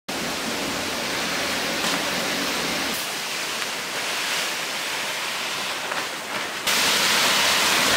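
Small dry fish-feed pellets pouring from a plastic sack into a metal basin, a steady hiss that turns suddenly louder about two-thirds of the way through.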